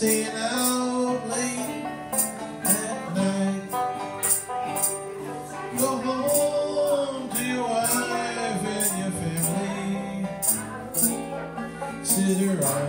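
Live acoustic old-time music: a man singing while strumming a banjo, with crisp percussion strokes keeping the beat.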